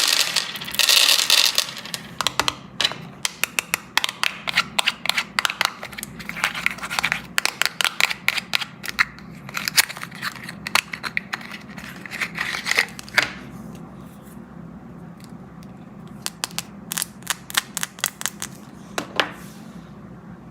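Candy being unwrapped and handled close up: a burst of wrapper tearing and crinkling at the start, then runs of sharp crackles and clicks that thin out a little after the middle and pick up again near the end.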